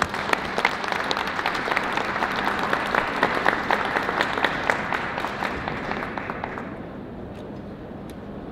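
Audience applauding, the clapping dying away about six and a half seconds in.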